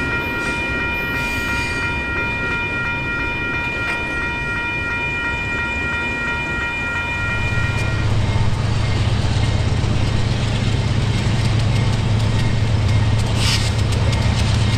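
Model freight train running by with diesel locomotive sound. A steady horn-like tone holds for the first half and stops about 8 seconds in. A low diesel engine drone then comes up louder as the locomotives pass.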